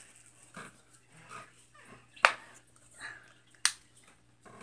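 Soft sniffing at a small plastic slime container held up to the nose, with two sharp plastic clicks about a second and a half apart.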